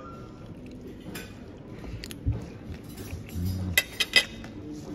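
A metal fork clinking against a ceramic plate: a few light taps, then a quick cluster of sharp, ringing clinks about four seconds in as the fork is set down on the plate.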